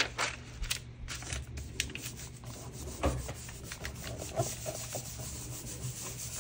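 Hand rubbing a sheet of vellum pressed over a painted gelli print: a dry, papery rubbing and rustling with small scattered clicks. She is burnishing the vellum to lift paint off the print onto it.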